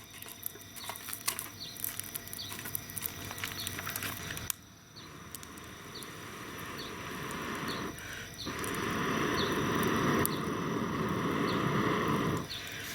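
Japanese cedar firewood burning in a small fire grill, crackling with many sharp pops. About two-thirds of the way in, a louder steady rushing noise takes over.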